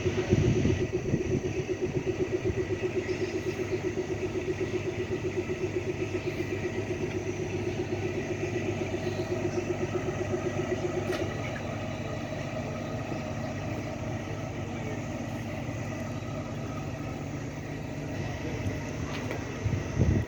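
Kalka–Shimla narrow-gauge toy train running, with a regular throbbing pulse of about three beats a second that gives way about halfway through to a steadier rumble, and a knock near the start and another near the end.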